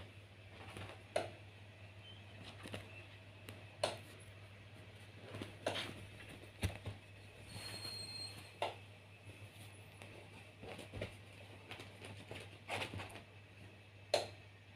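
An adult cat and a kitten wrestling on a bed: faint, scattered rustles of paws scrabbling on the sheets and pillow, with a few sharper light knocks, over a steady low hum.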